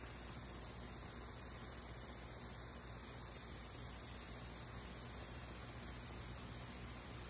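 Steady low hum of a Kubota M6040SU tractor's diesel engine working under load as it pulls a disc harrow through dry soil, with a steady high hiss over it.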